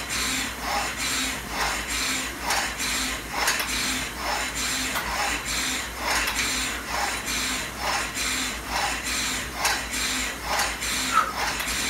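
Concept2 rowing machine's air-resistance flywheel whirring in surges, about two a second, as a wooden paddle shaft pulls its cables in alternating paddle strokes, with the cables and pulleys rubbing.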